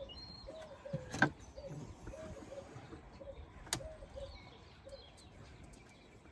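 A pigeon cooing in a run of short repeated notes until about five seconds in, with two sharp clicks, about one and four seconds in, from hand work on the van's engine as the EGR valve fittings are undone.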